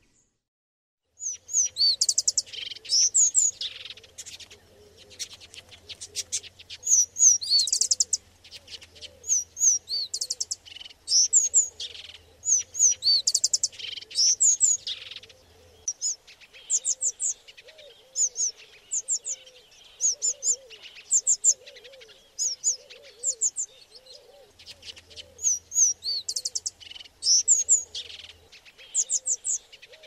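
Swamp flycatcher (Muscicapa aquatica) calling: clusters of high, thin chirps and quick trills, repeated every second or so, starting about a second in after a brief silence.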